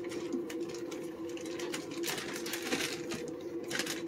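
Light clicks and rustling of a plastic bag as cut pork pieces are handled on a wooden cutting board, louder about two seconds in and near the end, over a steady hum.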